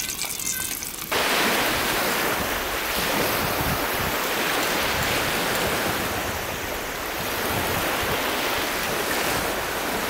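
Small lake waves lapping and washing onto a gravel shore: a steady rushing wash that swells and eases. It starts abruptly about a second in.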